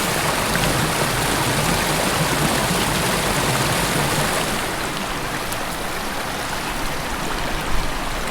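Creek water rushing steadily over rocks, easing slightly about halfway through, with a few faint clicks near the end.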